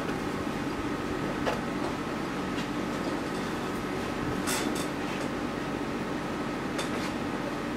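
Steady mechanical hum, like a fan running, with a few small sharp clicks and taps: one about a second and a half in, a pair around four and a half seconds, and another pair near seven seconds.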